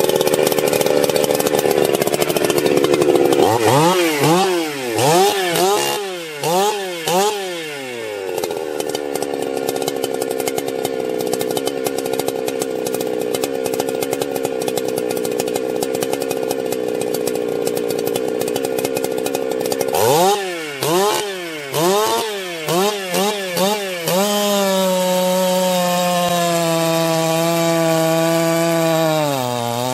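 Ported 70cc two-stroke chainsaw running: a few seconds at high revs, then several quick throttle blips, a long steadier stretch, another burst of quick blips about twenty seconds in, and then held at full throttle, its pitch dipping near the end.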